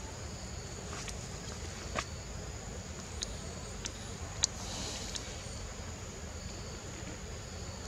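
Steady high-pitched insect drone in forest, with a few short sharp clicks or chirps a couple of seconds in, the loudest near the middle.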